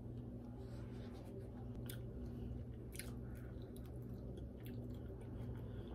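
A person chewing a soup dumpling in a bite or two, with a few faint short clicks over a steady low hum.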